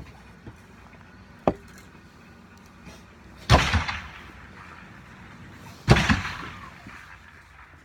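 Two gunshots about two and a half seconds apart, each followed by a long echoing tail in an enclosed range hall. A smaller sharp click comes about a second and a half in.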